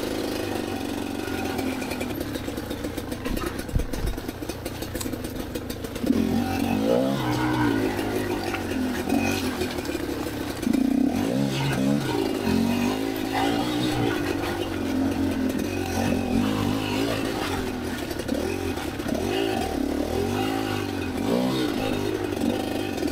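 Kamax KMX 250 two-stroke dirt bike engine being ridden at low speed. It runs fairly steadily for about six seconds, then the throttle is blipped again and again, the revs rising and falling.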